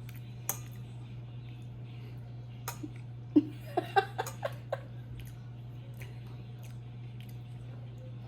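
A short burst of giggling laughter, about six quick pitched notes around three and a half to five seconds in, over a steady low hum, with a few faint clicks before it.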